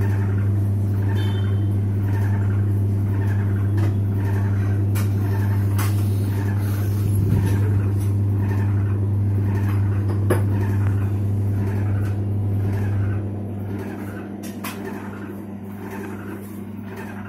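Samsung washing machine spinning with a steady low motor hum and a rhythmic scraping knock about every 0.7 seconds, plus a few sharp clicks. This is the spin noise that the technician traces to a small box lodged inside the machine. The hum drops away about 13 seconds in.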